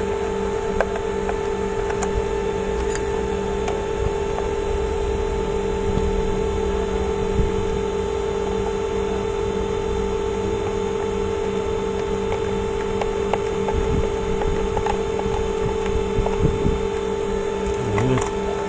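Steady electrical hum with scattered small clicks and knocks, from the plastic parts of a steam iron being handled and fitted back together by hand, with a few more knocks near the end.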